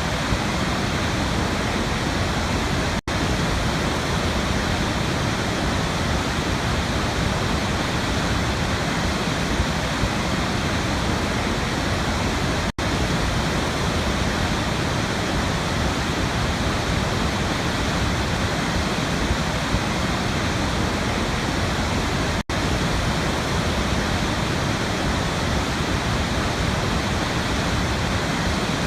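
Waterfall: a steady, even rush of falling water, broken three times by a momentary dropout about ten seconds apart.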